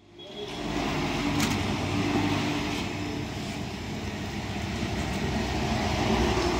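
Steady low mechanical hum and rumble, with a few faint clicks.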